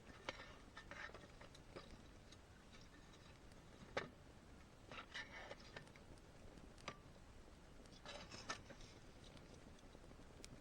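Near silence with scattered faint clicks and soft rustles, the sharpest click about four seconds in.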